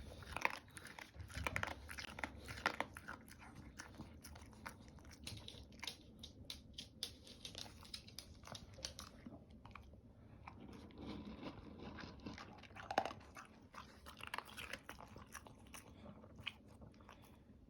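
A dog crunching and chewing its food, a quick, irregular run of crisp bites.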